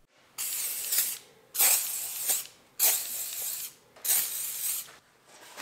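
Lubricant spray can hissing in four short bursts, each just under a second long, as lubricant is sprayed into the cylinders of a K24 engine block to wet the cylinder walls before the crankshaft is turned.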